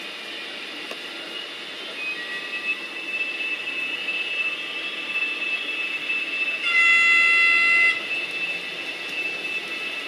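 Sound-equipped HobbyTrain model of a DB class 247 diesel locomotive playing its engine sound, which grows louder about two seconds in. A single horn blast of about a second comes about two-thirds of the way through and is the loudest sound.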